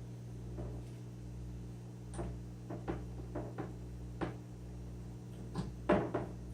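Light knocks and clicks of kief sifter parts being handled and fitted together: a couple of scattered taps, a cluster of small knocks in the middle, and a few sharper knocks near the end.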